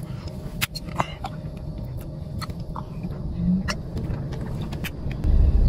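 A person chewing food, with scattered small clicks and crunches over a steady low rumble that grows louder near the end.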